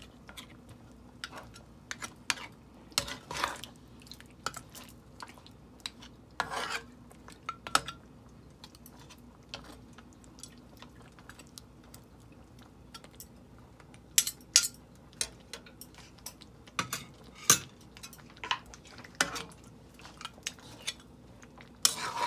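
A cooking spoon scraping and knocking against a pot while a meat curry is stirred on low heat. The strokes are irregular, with short quiet gaps between them.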